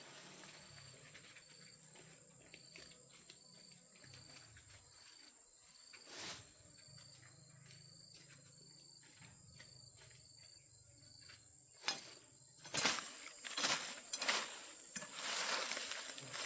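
Insects calling: a steady high-pitched buzz with a short chirp repeating about twice a second. Near the end come several knocks and rustles.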